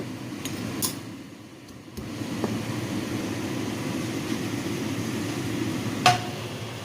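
Kitchen cooking sounds: a metal utensil knocks against the cooking pan a few times, with one sharp ringing clink near the end, over a steady low rushing noise.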